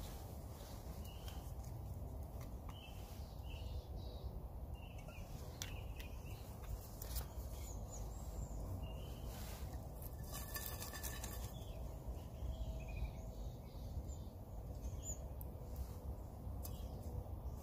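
Small birds chirping on and off over a low steady rumble, with a short run of clicks and crackle about ten seconds in.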